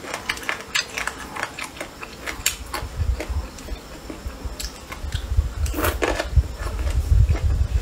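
Wooden chopsticks clicking and tapping against a glass bowl while picking through saucy boneless chicken feet, then biting and chewing with a low rumble building in the second half.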